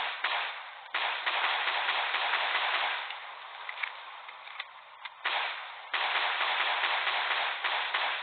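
Pistol shots: four sharp reports, one at the start, one about a second in, and two close together a little after five seconds, each trailing off in a long echoing decay.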